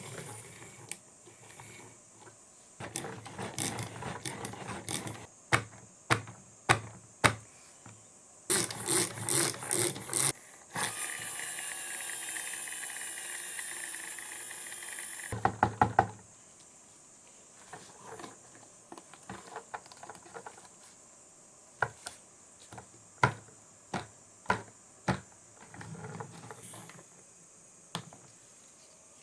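Marbles running down a HABA wooden marble run: sharp clacks and rattling clatters as they drop and hit the track pieces, with a steady rolling rumble for about four seconds near the middle and scattered single clicks afterwards.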